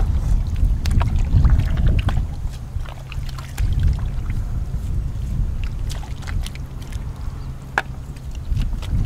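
Wind buffeting the microphone in a steady low rumble, with scattered small splashes and squelches of hands groping in shallow muddy water.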